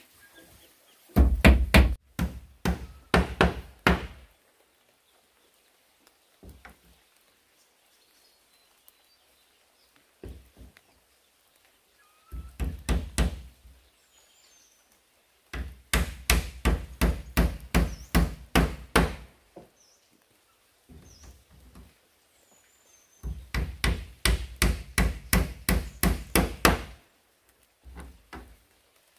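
Hammer striking wood in quick runs of blows, about four a second, with short pauses between the runs.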